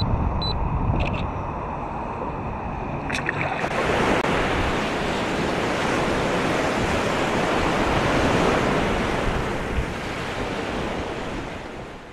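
Surf washing onto a beach, a steady rush of wave noise that cuts in about three and a half seconds in. Before it, low wind rumble on the microphone with two short high electronic beeps at the start.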